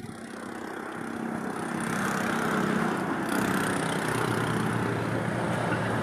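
An engine running steadily, growing louder over about the first two seconds and then holding level.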